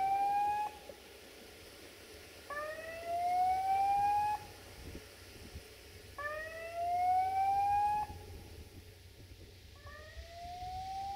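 A siren-like wail rising steadily in pitch for about two seconds and then cutting off, repeated about every three and a half seconds: one ends just after the start, two more sound in full, and another begins near the end.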